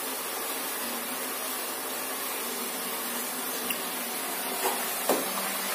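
Field beans deep-frying in hot oil in a kadai, a steady sizzle, with a few light knocks of a metal slotted skimmer stirring in the pan in the second half.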